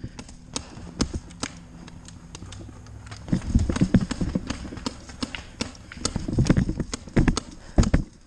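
Running footsteps thudding through woodland brush, mixed with scattered sharp pops of paintball markers firing, heavier in two spells in the second half.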